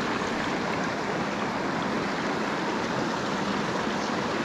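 A river running: a steady, unbroken rush of water where the current tumbles over the lip of a pool.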